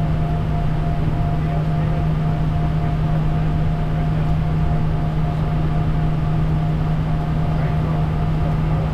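Steady cockpit noise of a Bombardier Challenger 350 business jet in the climb: a constant deep hum and a thin, higher steady tone over an even rush of engine and airflow noise.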